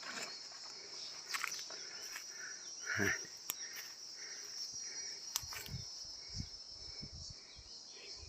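Steady shrill chorus of insects, with scattered clicks and rustles and a run of soft low thuds in the second half.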